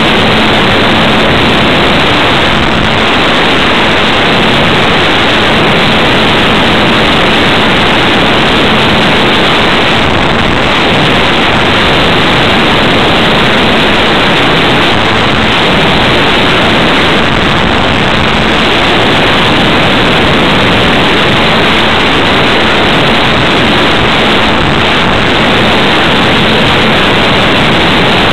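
Loud, steady rush of airflow and propeller noise on the microphone of a camera riding on a ParkZone T-28 Trojan RC model plane in flight, with a faint low hum from its electric motor that comes and goes.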